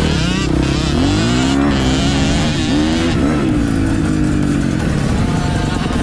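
Motocross dirt bike engines revving hard. The nearest bike's pitch rises as it accelerates, dips briefly, then climbs again before settling, with other small bikes running alongside.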